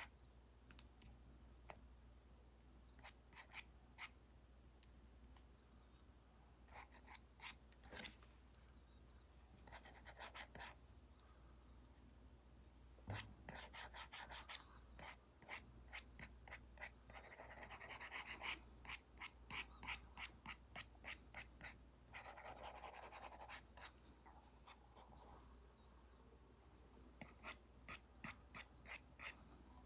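Apple Pencil tip tapping and stroking on an iPad screen covered with a paper-like film: scattered light taps, with runs of quick taps and short scratchy strokes in the middle and again near the end.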